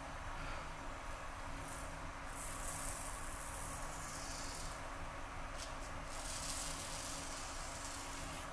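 Strokes of a Merkur 34G double-edge razor with a Rapira blade scraping over lathered stubble: a rasping hiss in several passes, each a second or two long.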